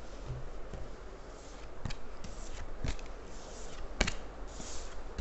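A deck of tarot cards being shuffled by hand: soft swishes of cards sliding against each other, with a sharp tap about once a second from about two seconds in.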